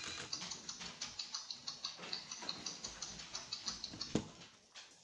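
Little Live Pets toy bird clicking rapidly with short high chirps. It stops with a sharper click about four seconds in, as the toy is switched off.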